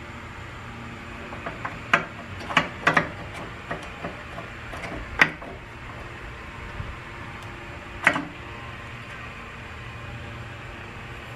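Front servo parts clicking and knocking against the 47RE transmission case as the servo is fitted into its bore: a handful of short, sharp knocks, the loudest about two and five seconds in and the last near eight seconds, over a steady low hum.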